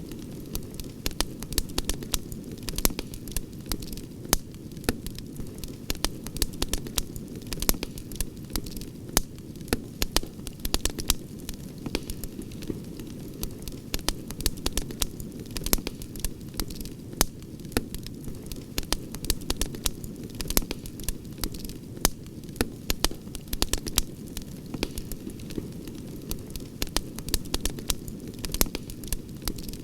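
Wood campfire burning, with a steady low rush of flame and irregular sharp crackles and pops several times a second.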